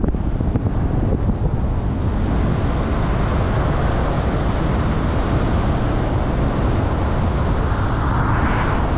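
Car driving along a road, heard as steady low wind buffeting on the microphone and road rumble, with a hiss that swells gradually to a peak just before the end.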